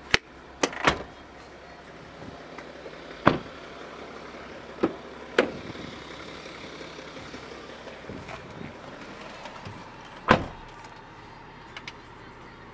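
A BMW X5's doors and interior fittings being handled, giving about seven sharp knocks and thuds spread over ten seconds. The two loudest come right at the start and about ten seconds in, over a faint steady low hum.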